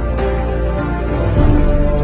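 Background music: held melodic notes over a steady bass, changing every half second or so.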